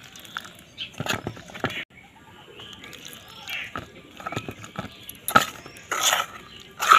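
A metal spoon stirring wet flour batter in a metal bowl, scraping and squelching, with a few sharp clinks of spoon against bowl.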